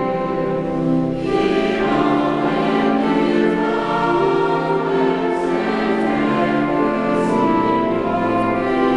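A choir singing held notes in harmony, the chords changing every second or so, with a few sung 's' sounds audible.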